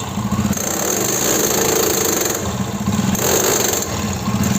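Hero Honda Splendor Plus motorcycle running, with a steady rapid rattle from its drive chain and rear sprocket. The sprocket's teeth are worn away and the sprocket bearing has broken.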